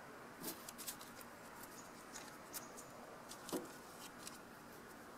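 Light clicks, scrapes and taps of a small black-powder serpentine pistol being handled on a wooden table, with two louder knocks about half a second and three and a half seconds in.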